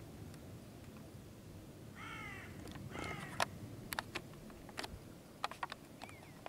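A bird calls twice, about a second apart, each call about half a second long, with scattered sharp clicks around it over a faint outdoor background.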